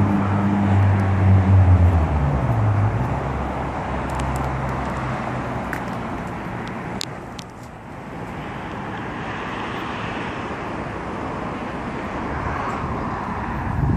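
Road traffic: a vehicle's engine hum dropping in pitch about two to three seconds in, then steady traffic noise with another vehicle swelling and fading around the middle.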